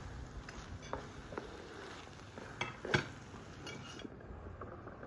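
Spoon knocking and scraping against a frying pan while stirring a mushroom and onion filling, with a few sharp clinks, the loudest about three seconds in.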